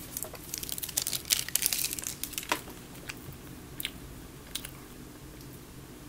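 A person chewing a chocolate nougat candy with the mouth closed, with sharp clicks, most of them in the first half.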